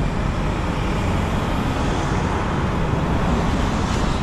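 Steady road traffic noise, an even rush without distinct passes or horns.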